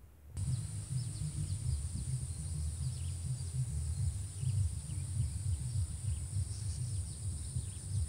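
Rural outdoor ambience that starts abruptly about half a second in: a steady high-pitched drone, with scattered short bird chirps over a low, fluttering wind rumble on the microphone.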